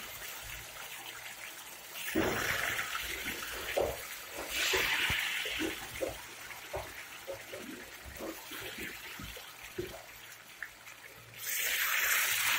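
Potato fries deep-frying in hot oil in a wok: a steady sizzle of bubbling oil with scattered small crackles and pops, growing louder for a couple of seconds several times.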